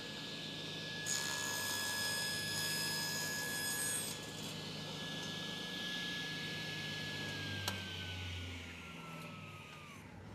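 Table saw running with a steady whine, its blade cutting through a board for about three seconds as the board is crosscut. Later the saw is switched off and the whine falls steadily in pitch as the blade spins down, with one sharp click in between.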